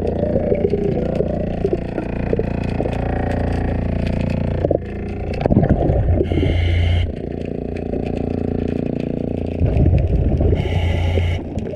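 Underwater sound of a diver scrubbing and scraping marine growth off a boat's hull, with a steady low hum throughout. Two loud breathing bursts from the diver's scuba regulator come about four seconds apart, near the middle and near the end.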